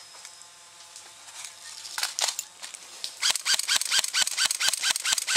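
Airsoft rifle firing rapid single shots, about five sharp cracks a second, starting about three seconds in. A few scattered clicks come a second earlier.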